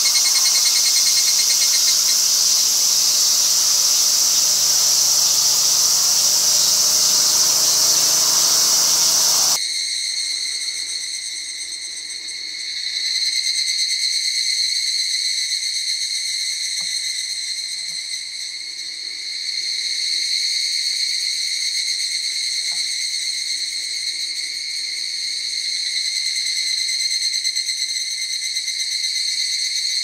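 Higurashi (evening cicada) calling up close, a loud high, hissy trill. About ten seconds in it cuts abruptly to a forest chorus of many higurashi, a steady high ringing that swells and fades in slow waves.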